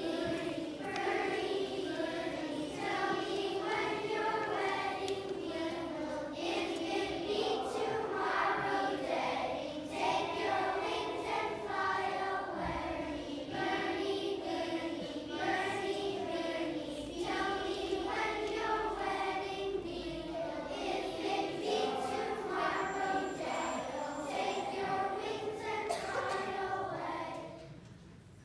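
A large choir of young children singing a song together; the singing stops about a second before the end.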